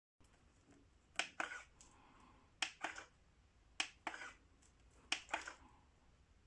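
Four pairs of short, sharp clicks, one pair about every 1.3 seconds.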